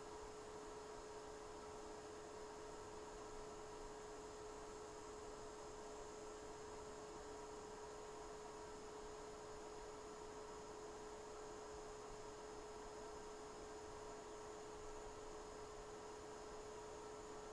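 Faint steady electrical hum with a soft hiss, holding one constant pitch throughout.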